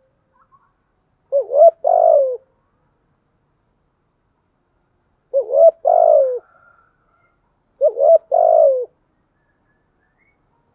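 Spotted dove cooing: three phrases a few seconds apart, each a couple of short coos followed by a longer coo that falls in pitch at the end.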